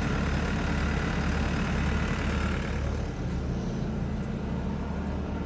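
Tracked skid steer's engine running steadily, a low even drone that eases slightly about three seconds in.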